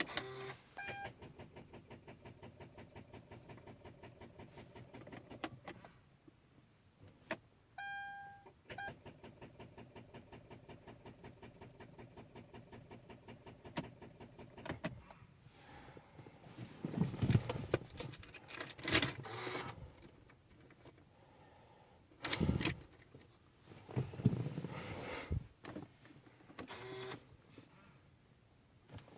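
Rapid, even clicking, about six clicks a second, in two runs of several seconds each. This is the chatter of a starter solenoid or relay that a dead battery cannot pull in on a 2011 Hyundai Genesis Coupe 3.8. A short electronic chime sounds near the start and again just before the second run. Handling knocks and rustles follow later.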